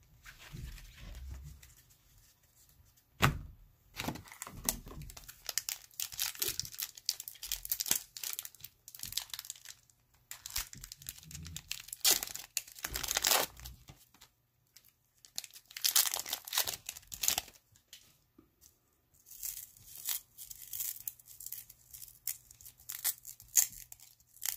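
A 1992 Fleer Ultra Series 2 card-pack wrapper being torn open and crinkled. The tearing and rustling comes in irregular bursts with short pauses, and a sharp snap about three seconds in is the loudest sound.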